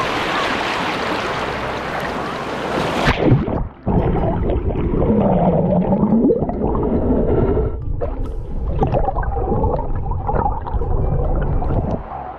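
Small surf waves splashing and washing over a camera at the waterline. About three seconds in, the sound turns muffled and gurgling as the camera goes underwater, with churning water and low sweeping tones.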